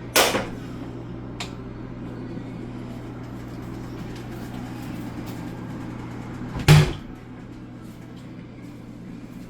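Kitchen clatter: two loud, sharp knocks about six and a half seconds apart, with a faint click between them, over a steady low hum.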